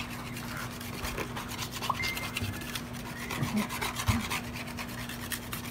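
Stone hand roller (metlapil) pushed back and forth over a stone metate, grinding cacao paste by hand with a repeated rasping scrape.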